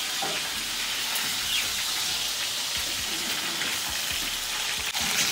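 Food sizzling steadily in a frying pan on a gas stove.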